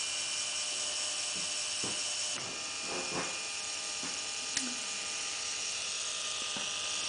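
Firgelli linear actuator's electric motor and gear train whining steadily as it drives its rod. The tone shifts slightly about two and a half seconds in, and there is a single click near the middle.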